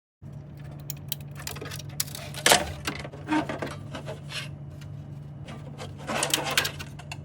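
Elegoo Centauri Carbon 3D printer running, a steady low fan hum under irregular clicks and short bursts of motor movement noise. The loudest movements come about two and a half seconds in and again around six seconds.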